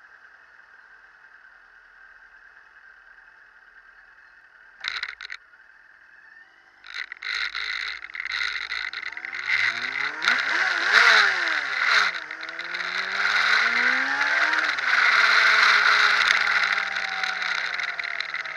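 Honda CG125 motorcycle being ridden, its engine note rising as it accelerates and then falling as it eases off, twice, with wind noise on the microphone growing louder. It starts from a quiet steady hum, and there is a brief clatter about five seconds in.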